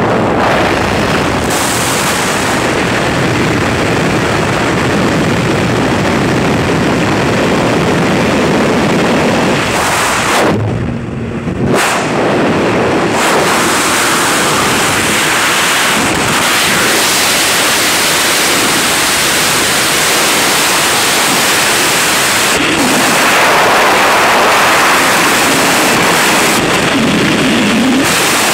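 Freefall wind rushing over the camera's microphone during a skydive: a loud, steady rush of air, with a brief lull about eleven seconds in.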